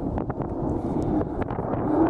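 Military jet at the start of its takeoff roll, its engine noise heard from a distance as a steady low sound with crackles, with wind buffeting the microphone.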